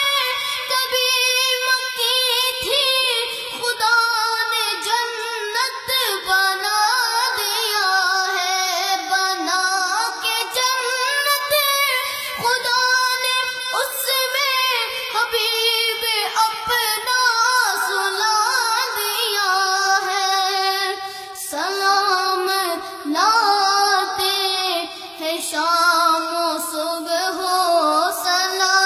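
A boy singing a devotional Urdu song in praise of Aisha, solo and without instruments, in a high voice with long, ornamented phrases.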